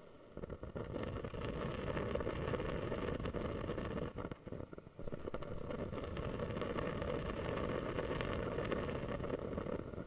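Ultrasonic mist humidifier bubbling: a dense, rapid bubbling that starts suddenly and falters briefly about halfway through.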